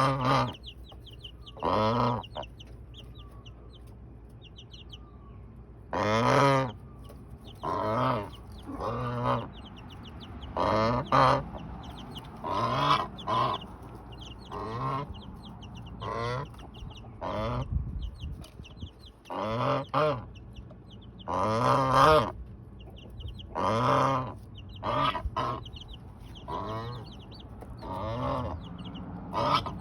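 Domestic goose honking over and over, about twenty loud honks, one every second or two after a pause of a few seconds near the start. Baby chicks peep softly and steadily underneath.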